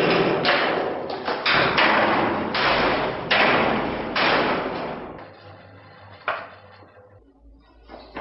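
Repeated heavy thumps and bangs, one about every half second. They come as a person in an ape costume rushes and strikes out inside a barred enclosure. They are loud for the first five seconds, then die away to a few fainter knocks.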